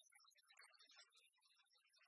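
Near silence, with only faint, indistinct sound.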